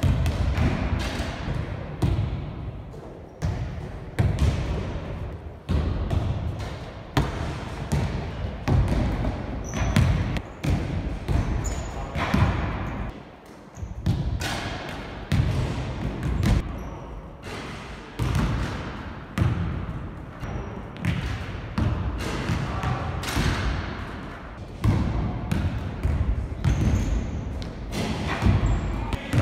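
Size 5 basketball bouncing on a wooden gym floor: a series of irregular thuds, about one every half second to second and a half, each echoing in the large hall.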